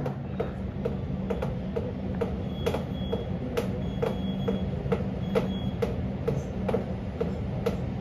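Wall-mounted split air conditioner running with a steady low hum, over a fast, regular ticking and louder clicks about once a second.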